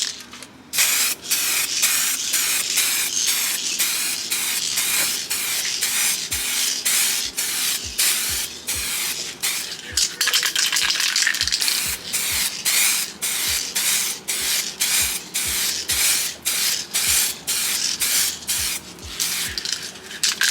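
Aerosol can of two-part (2K) clear coat spraying: a loud, steady hiss broken by brief pauses several times a second as the nozzle is pressed and released in quick bursts.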